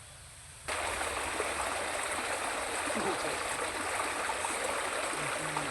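Steady rushing of flowing stream water, which comes in abruptly just under a second in.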